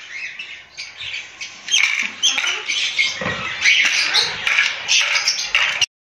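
A flock of aviary lovebirds and other small parrots squawking and chattering: a dense, continuous run of short, shrill calls. It cuts off suddenly near the end.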